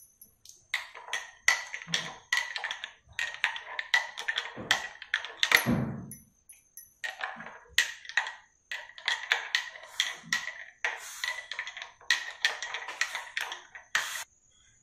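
Spoon stirring coffee in a ceramic mug, clinking against the inside about three times a second with a few brief pauses, each clink leaving a short ringing tone.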